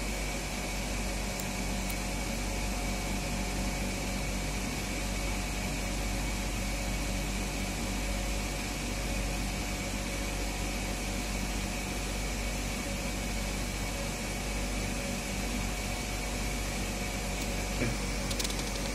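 Steady room hum from running machinery, with a thin high whine held over it. A couple of faint clicks come near the end.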